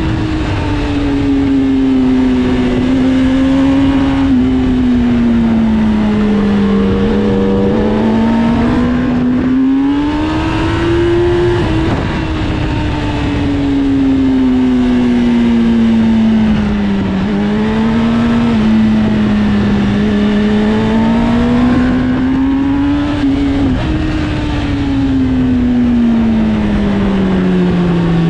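Sportbike engine on track, its pitch climbing and falling repeatedly as the rider accelerates and slows through corners, with a couple of sudden drops in pitch.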